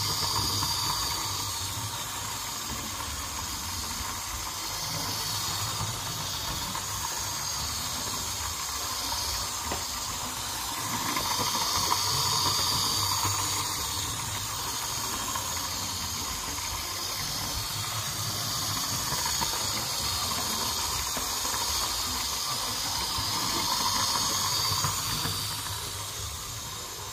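Hornby 9F 2-10-0 model locomotive running on its track: a steady motor whirr and wheel-on-rail hiss that swells and fades every few seconds as it circles past.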